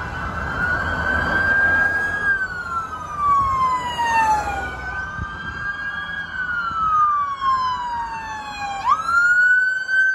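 Police car siren wailing, its pitch sliding slowly up and down with a quicker rise near the end, over the low rumble of passing vehicles.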